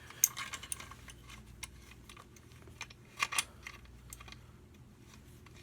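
Scattered light clicks and taps of small metal engine parts and hand tools being handled during reassembly, with a sharp click just after the start and two more close together a little past the middle.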